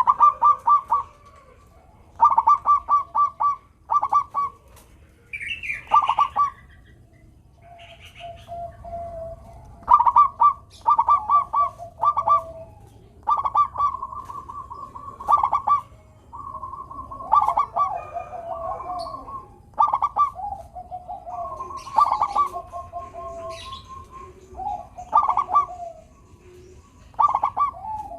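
Zebra dove (perkutut) cooing: phrases of quick stuttering coo notes, often running on into lower rolling notes, repeated every second or two. A brief higher call comes about six seconds in.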